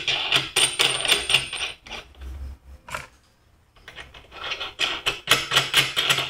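Metal bolts, nuts and washers clinking and rattling as they are handled on a steel plate: quick irregular clicks in two bunches, with a quieter pause around the middle.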